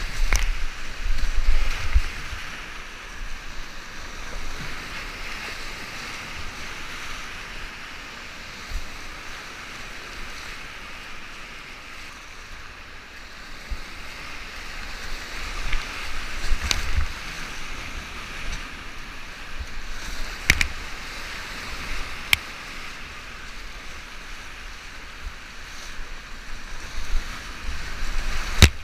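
Steady rush of whitewater rapids heard from a kayak running them, with splashes and knocks of the paddle and water striking the boat. The splashing is heaviest in the first two seconds and again near the end, with a few sharp knocks in between.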